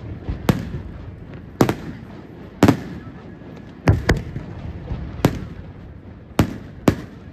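Aerial firework shells bursting in a display: seven sharp booms, roughly one a second, with lighter pops between them.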